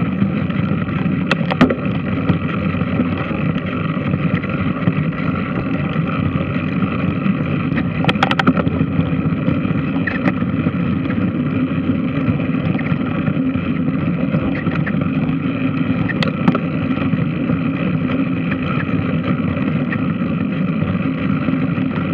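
Large washing machine running with a steady mechanical drone, broken by a few sharp clicks or knocks.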